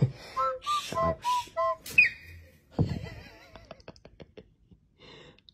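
A quick run of about eight short whistled notes, ending in a fast upward slide. Then comes a softer hiss with a few light clicks.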